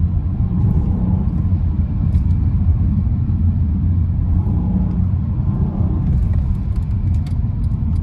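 Car running at speed, a steady low engine and road rumble heard from inside the cabin.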